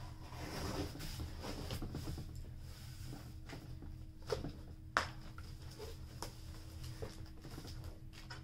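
Hands working a taped cardboard box open: rustling and scraping of cardboard and packing tape, with scattered ticks and two sharp knocks about four and five seconds in, the second the loudest.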